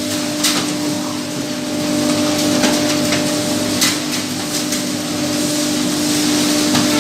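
CNC router spindle running with a steady hum while cutting wood, over a hiss of cutting noise with a few sharp clicks.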